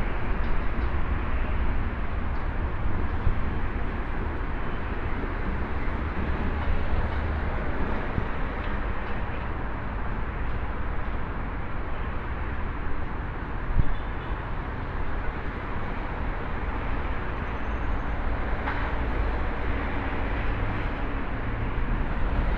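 Electric commuter train pulling out of the station, a steady rumble and hiss that eases a little after about eight seconds, with one short knock around fourteen seconds in.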